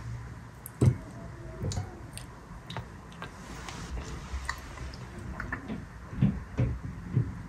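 A metal spoon knocking and clinking against a ceramic plate, with soft wet squishes as thick tomato sauce is spooned over pieces of chicken. There is one sharp knock about a second in and several quick clinks near the end.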